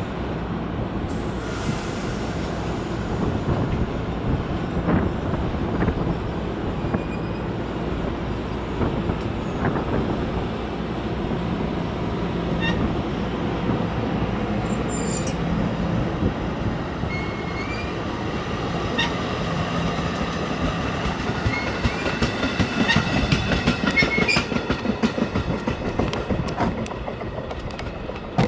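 New Jersey Transit double-deck passenger cars rolling past, wheels rumbling steadily on the rail with light high-pitched wheel squeal. Near the end a rapid run of wheel clicks over rail joints comes loudest as the last cars go by, then the sound fades as the train moves away.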